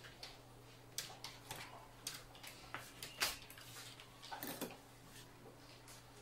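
Light clicks and taps of a small circuit board being handled and set down on a microscope stage, scattered over the first five seconds with the loudest about three seconds in, over a faint steady hum.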